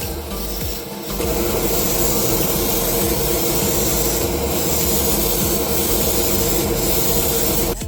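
Small power tool running steadily with a constant hum. It starts about a second in and cuts off just before the end.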